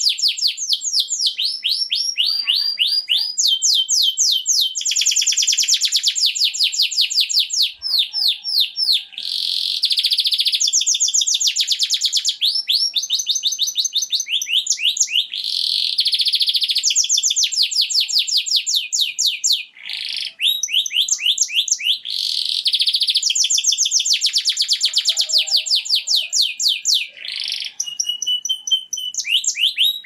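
Domestic canary singing a long, continuous song of high-pitched rapid trills, each run of fast repeated notes lasting a second or two before switching to another, with only brief pauses.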